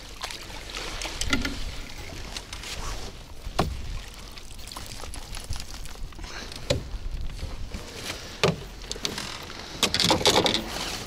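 Scattered knocks and handling noises in a small fishing boat over a steady faint background noise.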